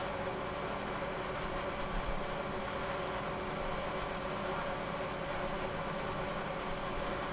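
Steady background machine hum with a few faint steady tones in it, running evenly throughout with no distinct clicks or knocks.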